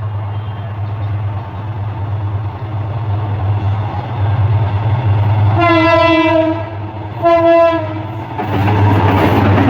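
Diesel locomotive of a Bangladesh Railway express train sounding its horn twice, a long blast then a shorter one, over the steady hum of its engine. Near the end a loud rushing rumble of the train passing close by follows.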